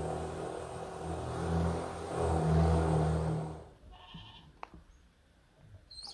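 A motor running with a low steady hum that swells and fades, cut off abruptly a little after three and a half seconds. Then it is quiet, with a faint click and brief high chirps near the end.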